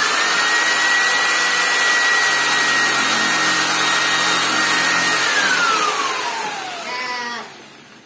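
Corded electric jigsaw running at full speed with its blade against the steel tube of a table leg, a loud steady high whine over harsh cutting noise. About five seconds in the trigger is released and the motor winds down, its pitch falling until it stops.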